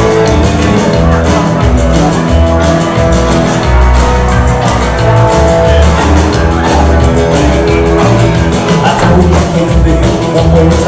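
Live rockabilly music: electric guitar and an upright double bass playing together, with the bass notes moving in a steady, even rhythm.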